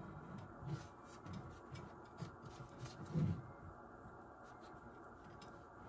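Faint rubbing, scraping and small clicks of hands handling the metal chassis and finned heatsink of an Icom IC-735 transceiver.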